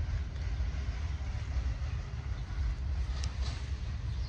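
Freight train's wagons rolling away along the track, a low, steady rumble.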